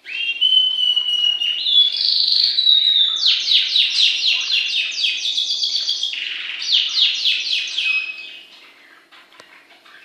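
Cockatiel singing: held whistles that step up in pitch over the first few seconds, then fast runs of repeated sweeping notes, fading out about eight seconds in.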